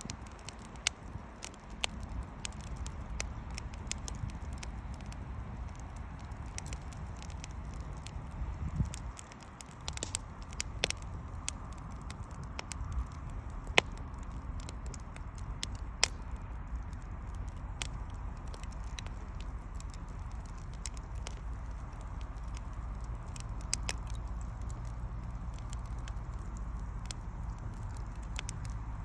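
Wood fire burning: irregular sharp crackles and pops from the burning wood over a steady low rumble.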